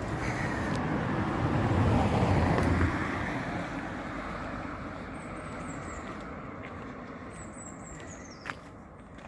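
A car passing by on the road: its engine and tyre noise swells to a peak about two to three seconds in, then fades away.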